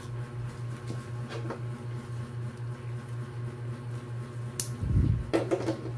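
Armrest parts and plastic packaging being handled, with a sharp click and then a low thump about five seconds in, over a steady low hum.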